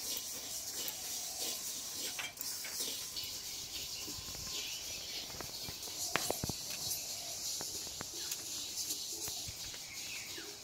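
Parboiled rice dry-roasting in a metal wok, stirred with a small bamboo-stick broom: a steady dry hiss and rattle of grains swept across the pan, with a few sharp clicks about six and eight seconds in.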